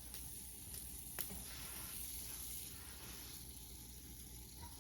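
Red fidget spinner spinning on its bearing: a faint, steady whirring hiss, with one light click about a second in.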